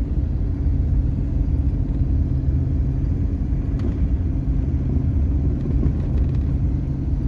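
Truck on tire chains driving slowly through deep snow at about 10 mph, giving a steady low engine and road rumble.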